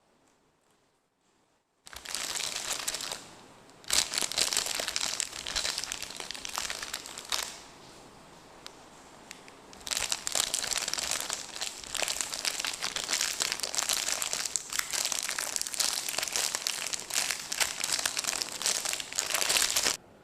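Crinkly plastic candy wrapper being handled and torn open close to the microphone. It starts about two seconds in and comes in stretches of busy crackling, with a short pause and a quieter spell in the middle, then runs steadily until it stops abruptly at the end.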